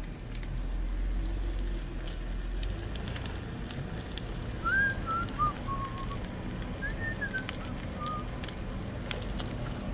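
Outdoor ambience with a steady low rumble, and two short runs of whistled chirping notes about halfway through.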